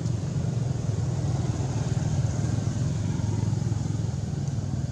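A motor engine running steadily somewhere off-picture, a continuous low hum with a fast flutter.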